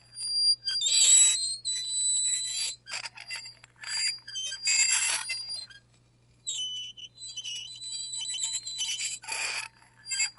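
Metal fork scraping across a plate in repeated, irregular strokes, each one a high-pitched screech and squeal, with a brief pause about six seconds in.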